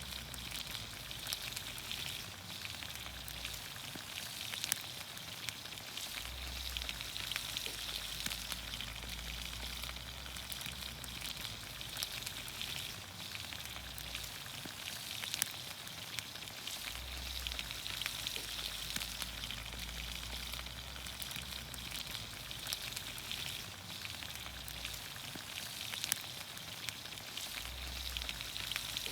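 Vegetables in olive oil sizzling over a campfire: a steady hiss with scattered pops and crackles.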